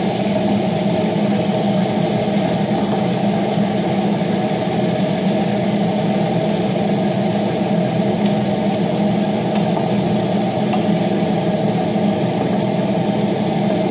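Kitchen range hood extractor fan running with a steady hum.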